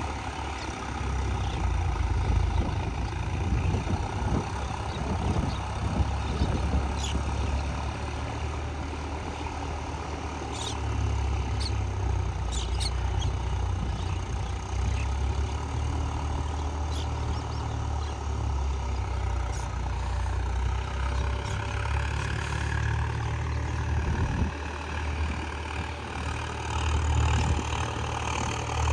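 Swaraj 744 FE tractor's diesel engine running steadily with a strong low rumble, with a few faint light ticks in the middle.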